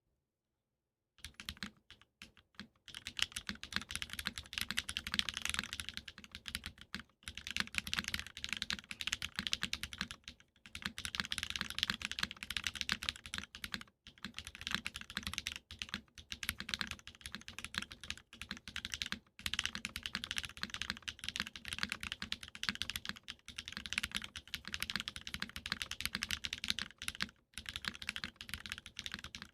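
Typing on a custom mechanical keyboard, an Antipode Studio Aalto with a carbon fiber plate, BSUN Hutt switches and GMK Bordeaux keycaps. The keystrokes are fast and continuous, starting about a second in and broken by a few short pauses.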